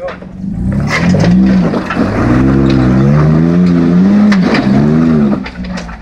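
Jeep Wrangler JK Unlimited Rubicon engine revving in several surges under heavy load as the Jeep climbs a steep rock ledge, its pitch rising and falling. Sharp knocks and clatter from the tyres and rock come through it. The revs drop away near the end.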